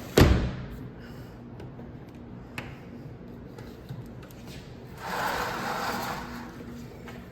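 A window sliding shut with a single sharp knock, then about a second of rustling from window blinds being worked about five seconds in.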